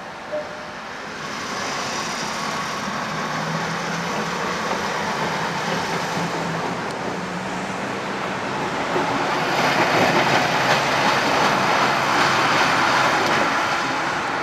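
Narrow-gauge diesel rail vehicle running close by: a steady low engine drone with the noise of wheels on the track. The sound builds and is loudest over the last few seconds.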